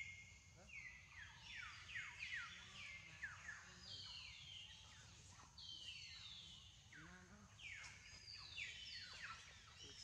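Faint chorus of high whistled animal calls, many overlapping, each sliding down in pitch, a few every second, over a steady high hiss.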